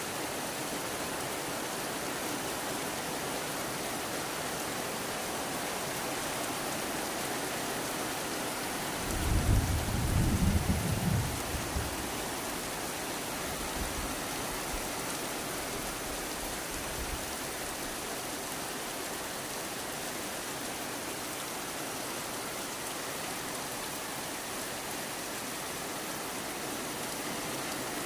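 Steady rain falling, with a low rumble of thunder about nine seconds in that fades away over several seconds.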